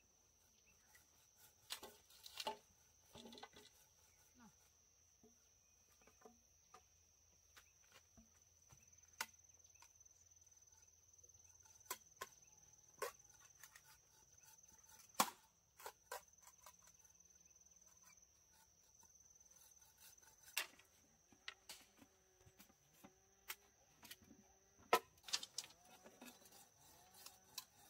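Irregular sharp knocks of a machete blade striking bamboo, scattered a few seconds apart, with a steady high insect drone behind them.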